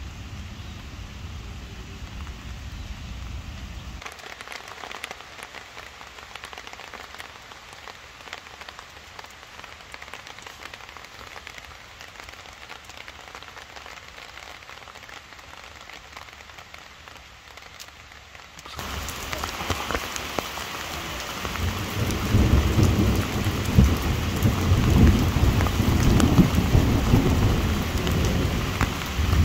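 Heavy rain falling steadily in a thunderstorm, with low rumbles of thunder. The rain grows louder about two-thirds of the way in, and a long roll of thunder follows near the end as the loudest sound.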